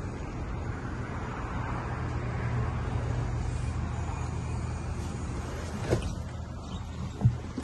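Steady low hum of an idling engine, with two short knocks near the end.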